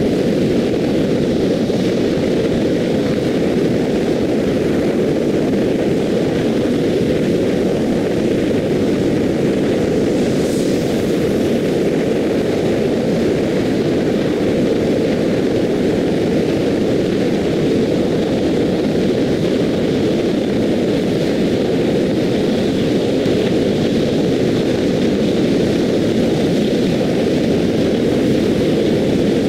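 Steady wind and road noise of a car travelling at expressway speed, heard through a dash-mounted action camera's microphone.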